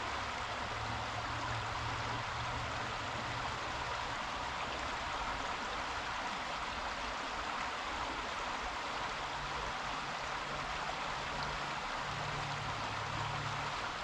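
Creek water flowing with a steady, even rushing, and a faint low hum that fades early and returns in the last few seconds.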